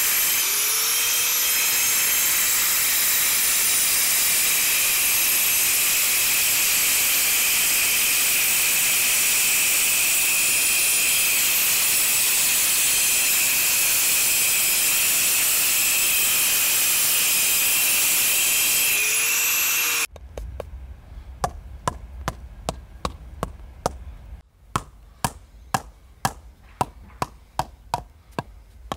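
Angle grinder cutting through a concrete paving slab: a loud, steady grinding whine with a high ring. About twenty seconds in it gives way to a rubber mallet tapping paving slabs down into their bed, sharp knocks roughly two a second.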